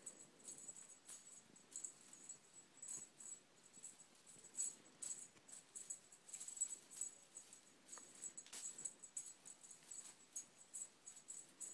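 Faint, irregular rustling and light shaking of a feather boa toy and bedding as the boa is waved about and a kitten bats at it.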